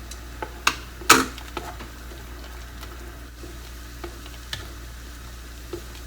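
Kitchen utensils clicking and clanking against a pot, with one sharp metallic clank about a second in, over a steady low hum.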